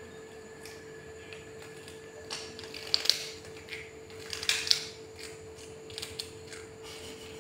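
Cat chewing crunchy food, with short clusters of sharp crunching clicks about three seconds in and again about a second and a half later. A steady faint hum runs underneath.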